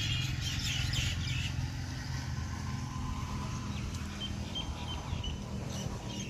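A steady low engine drone, with birds chirping over it, most of the chirps in the first couple of seconds.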